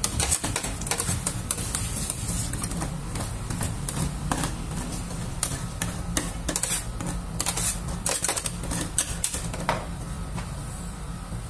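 Metal spatulas tapping and scraping on a stainless-steel cold plate as rolled ice cream is chopped and spread thin: a rapid, irregular clatter of clicks over a steady low hum. The clicks grow sparser near the end.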